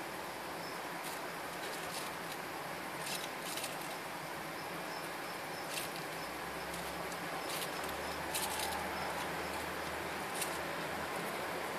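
Scattered light clicks and scratches over a steady hiss, from baby bearded dragons' claws moving on newspaper in their tank.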